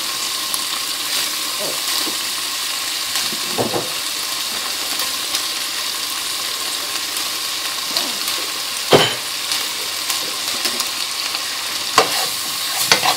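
Halved cherry tomatoes sizzling steadily in hot oil in a frying pan. A few short knocks sound against the pan, the loudest about two-thirds of the way through, and a spatula stirs the pan near the end.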